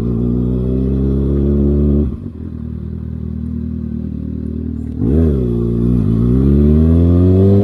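2019 Kawasaki Ninja ZX-6R inline-four with an aftermarket Austin Racing exhaust, ridden slowly. The engine note climbs gently and drops sharply as the throttle is closed about two seconds in. Near five seconds there is a short rise and fall, then it climbs steadily again.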